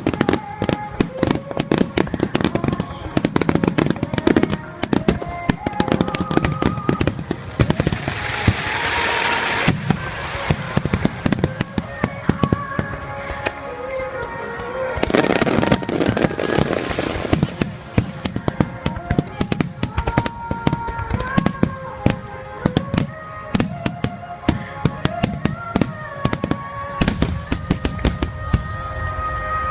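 Fireworks bursting in rapid, continuous volleys of bangs and crackle, with music playing under them. The hissing crackle swells up twice, around 8 seconds and again around 15 seconds in.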